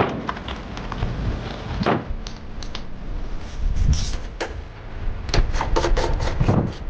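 Clicks, knocks and clatter of tools and metal parts being handled as a combi boiler's burner and heat-exchanger front section is taken apart, with a quick run of clicks near the end.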